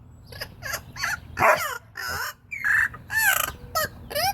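Pet bird calling in a series of short, pitched squawks that bend up and down in pitch, the loudest about a second and a half in and again near three seconds.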